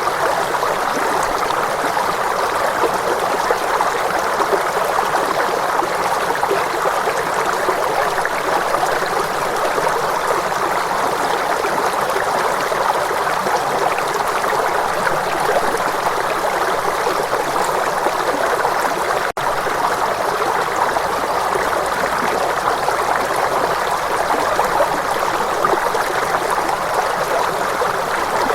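Steady rushing of a flowing stream, with no bowl or bell tones, broken by a split-second dropout about two-thirds of the way through.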